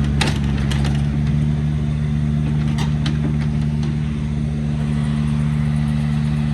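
A machine's engine running steadily under even throttle, with a few faint clicks and knocks over it.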